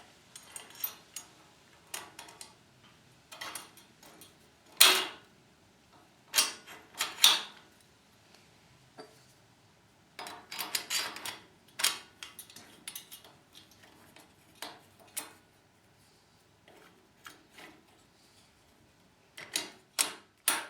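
Metal parts of a chainsaw mill clinking and knocking by hand as the saw tip guard is fitted to the frame with nuts and washers, in scattered clicks and taps with quiet gaps, one knock about five seconds in louder than the rest.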